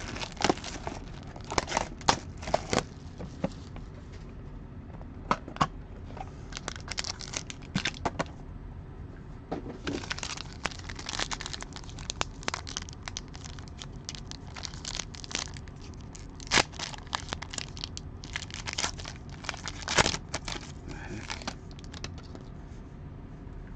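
Plastic and foil wrapping of a trading-card box and pack being torn open and crinkled by hand: irregular crackling and tearing in clusters, dying away near the end.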